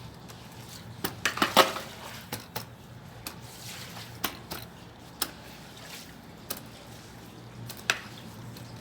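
Washing down with a garden hose: a faint water noise over a low steady hum, broken by scattered sharp knocks and clatters. There is a quick run of them about a second in, then single ones every second or so.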